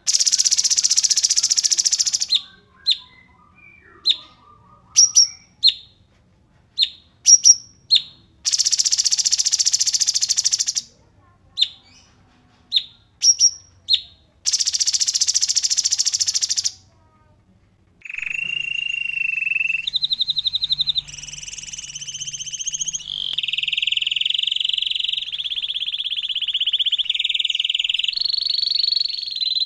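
Recorded songbird calls: three long, harsh, hissing calls of about two seconds each alternate with short sharp chirps. Then, past the middle, the song turns to continuous rapid trills that step up and down in pitch.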